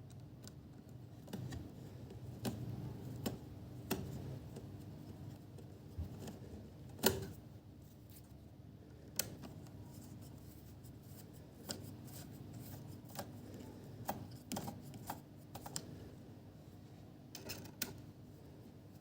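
Irregular light clicks and taps of small hard objects being handled, the loudest about seven seconds in and a quick cluster near the end, over a steady faint hum.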